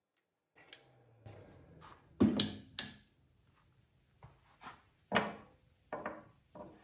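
Tools being handled on a wooden workbench: a string of sharp knocks and clunks, the loudest cluster about two seconds in, as a cordless drill is set down and a small square is laid against a board's edge.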